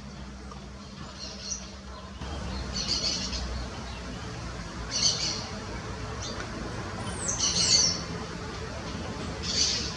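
Short, high bird chirps every two seconds or so, including a pair of quick downward-slurred calls about seven and a half seconds in, over a low background rumble.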